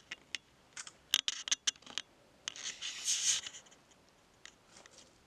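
Footsteps pushing through dry undergrowth: a quick run of sharp twig snaps, with branches and leaves rustling about three seconds in.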